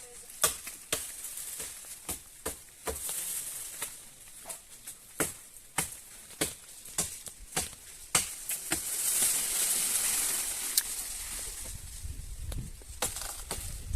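Repeated chops of a chempui (a large machete) biting into wood, about one to two sharp strokes a second, with a stretch of rustling hiss around the middle.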